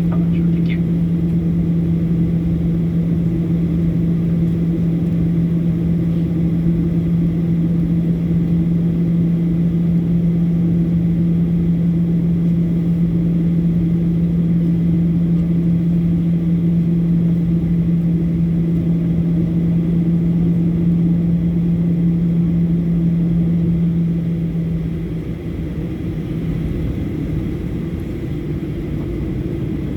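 Boeing 737 jet engines heard from inside the airliner's cabin: a loud, steady rumble with a constant low hum, which eases off slightly and loses the hum near the end.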